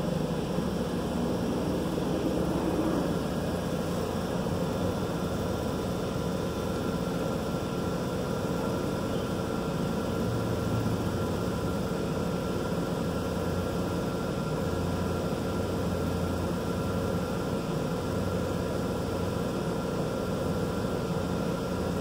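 Laser engraver at work: the steady hum and whoosh of its air-assist pump and fume-extraction blower, with some low shifts in pitch as it engraves.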